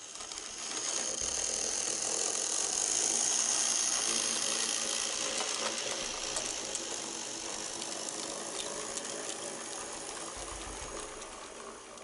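N-scale model train running past on its track, with the motor and wheels making a continuous mechanical running noise. It grows louder over the first three seconds or so, then slowly fades as the train moves on.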